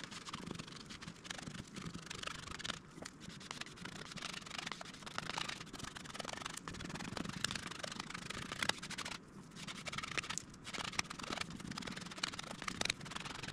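Gloved hands and a plastic squeegee rubbing and smoothing epoxy-wet peel ply cloth over a fiberglassed foam plug: soft, irregular scraping and rustling with small clicks.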